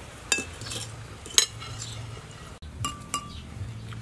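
Metal spoons clinking against ceramic bowls and plates as people eat, with several sharp clinks; the loudest comes about a second and a half in.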